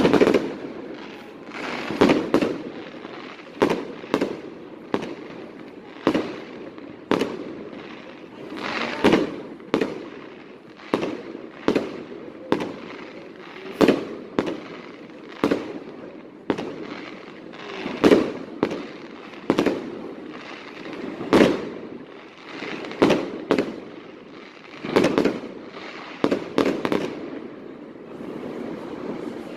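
Fireworks display: shells bursting one after another in sharp bangs about once a second, each trailing off in a rumbling echo.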